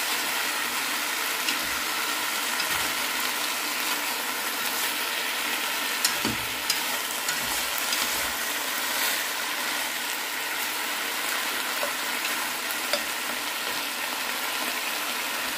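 Chicken pieces, livers and gizzards sizzling steadily as they are stir-fried in hot oil and caramelized sugar in a nonstick pot, with a few light clicks of chopsticks against the pot.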